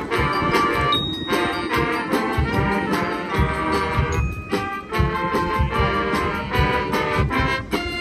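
High school marching band playing its field show: brass ensemble over drums and percussion.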